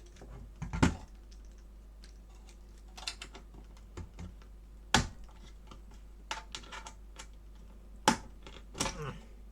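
Scattered clicks and taps of a metal shield, plastic parts and tools being handled while an Xbox One S is taken apart, with a few sharper knocks about a second in, around five seconds in and near the end.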